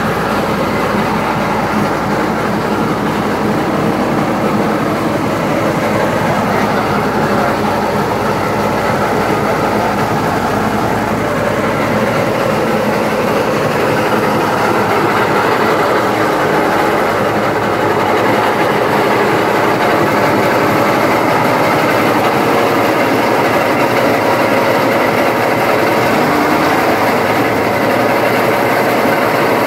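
Motorised crop thresher running steadily, a continuous mechanical rattle and drone that grows slightly louder in the second half.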